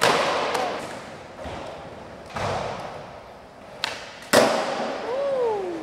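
Skateboard rolling on concrete with several sharp wooden clacks of the deck. The pop of the tail comes just before four seconds and the loudest clack, the landing, about half a second later, each ringing on in an echoing hall.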